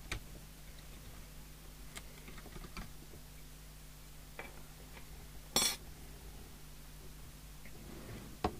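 Light metallic clicks and clinks from handling the open CB radio chassis and its removed metal screen can, with one louder short clatter about five and a half seconds in. A faint steady low hum runs underneath.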